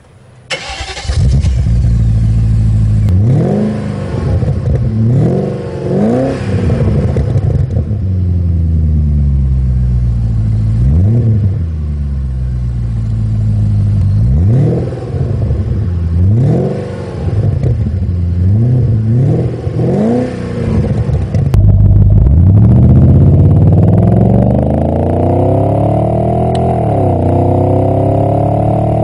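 BMW E31 8 Series (840i) V8 revved through its exhaust while standing still: a series of separate blips, each rising and falling back to idle. About three-quarters of the way through, the car pulls away under hard acceleration. The engine note climbs steadily, drops at an upshift, and climbs again.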